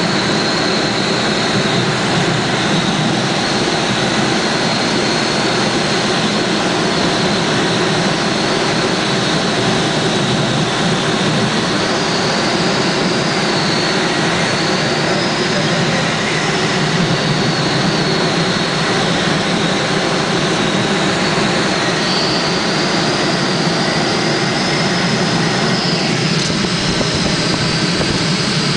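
Air rushing past the canopy inside a Bocian glider's cockpit in gliding flight, with no engine: a steady, loud rush of wind and a thin high whistle that shifts slightly in pitch a few times.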